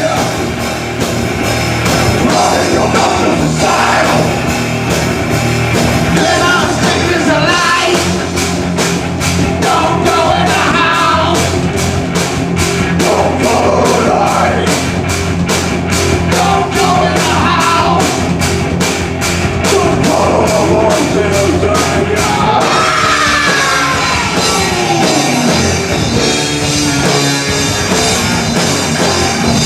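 A live rock band playing a song with vocals, drums and guitar. A fast, even cymbal beat runs through the middle of the passage, and a long falling slide comes near the end.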